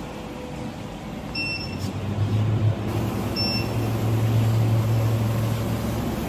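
SPB-H1 induction melting furnace running with a steady electrical hum that gets louder about two seconds in, and a short double-pitched electronic beep about every two seconds.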